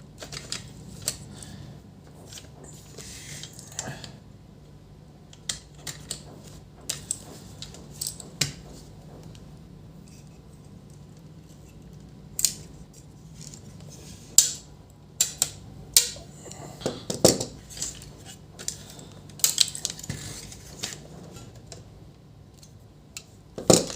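Scattered sharp clicks, taps and brief scrapes of small metal and plastic parts being handled and fitted together while a laser printer's fuser assembly is put back together, over a faint steady hum.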